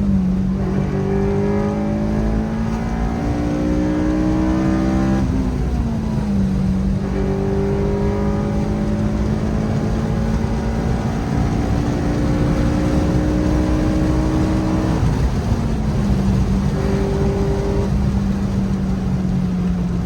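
Honda Civic Si engine heard while driving, its revs climbing slowly through each gear and dropping sharply on upshifts about five seconds in and again about fifteen seconds in. The clutch had just been bled and shifts cleanly.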